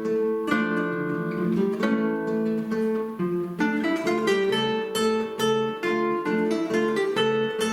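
Two acoustic guitars playing a duet. Slow, ringing chords give way about three and a half seconds in to quicker plucked notes over a repeating bass.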